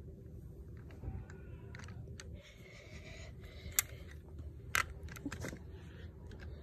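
Low rumbling handling noise with light rustles and scrapes, and two sharp clicks about a second apart near the middle.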